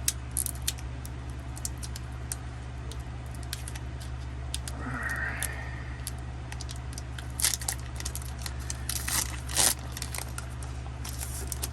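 Foil Pokémon booster pack being handled and torn open: scattered crinkles and sharp crackles, busiest in the second half, over a steady low hum.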